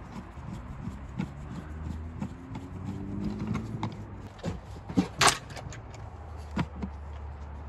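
A hand screwdriver and metal fixture parts clicking and scraping as a screw is driven into a light's mounting bracket, with a sharper metallic clink about five seconds in, over a steady low hum.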